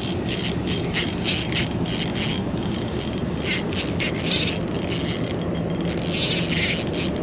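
Fishing reel being cranked to wind in line, its gears making a quick, uneven run of clicks over a steady low background noise.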